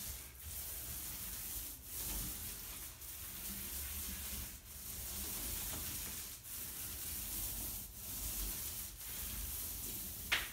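Thick paint roller loaded with paint rolling across a drywall wall: a steady sticky hiss in repeated strokes, broken by short pauses every second or two as the direction changes. A sharp click near the end.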